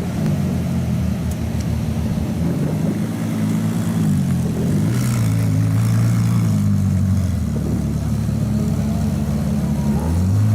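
Ferrari LaFerrari's V12 engine running at low revs, its note dropping a little in the first few seconds, then holding steady before rising again near the end.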